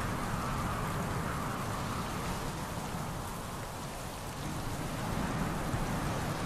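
Steady heavy rain, a storm sound effect, with a low rumble underneath.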